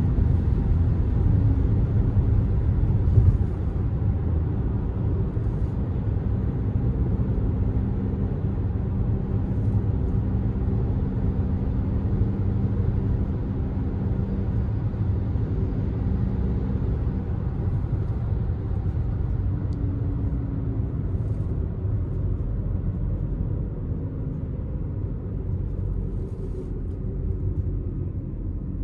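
Cabin sound of a VW Tiguan 2.0 TDI, a four-cylinder turbodiesel, driving at motorway speed: a steady low engine drone with tyre and road rumble. A brief knock about three seconds in, then slightly quieter running that eases off gently near the end.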